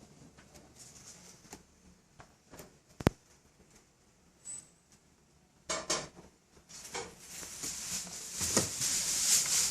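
Scattered light clicks and taps with one sharp knock about three seconds in, then a scraping, rustling noise that builds up from about seven seconds in.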